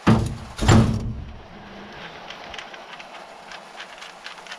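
Two short ripping noises in the first second as a hook-and-loop sanding disc is pulled off the drill attachment's backing plate, followed by faint clicks of handling.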